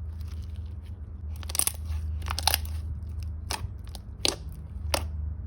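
Thick glossy slime with crunchy add-ins being squished and worked by hand, giving a series of sharp crackly pops and crunches, about six of them in the second half, as air bubbles in the slime burst. A steady low hum runs underneath.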